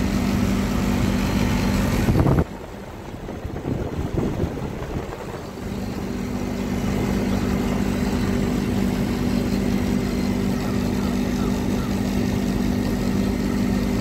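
Air conditioner outdoor unit running with its newly fitted three-phase compressor during refrigerant gas charging: a steady mains hum over a rushing noise. The sound drops off abruptly about two and a half seconds in and comes back steady about three seconds later, running normally.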